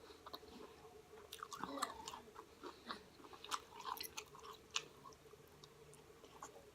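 Close-up chewing of a Chipotle burrito bowl: faint wet mouth smacks and clicks, busiest from about a second in to nearly five seconds, then quieter.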